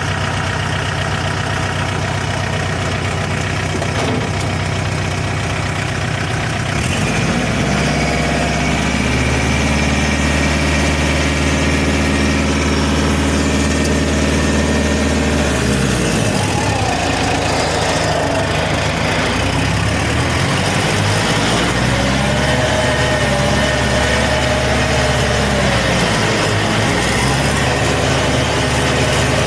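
Compact tractor engine running steadily while the tractor drives across a worked field. Its pitch steps up about seven seconds in, dips and recovers around sixteen seconds, and rises and falls again later as the engine speed changes.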